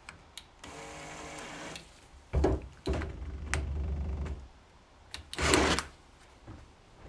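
Handheld electric drill motor running in short bursts, with knocks and clatter from handling it.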